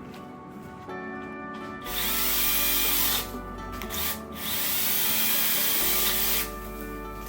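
Cordless Saker mini chainsaw running in two bursts, one of about a second and one of about two seconds, as it cuts through branches. Background music plays throughout.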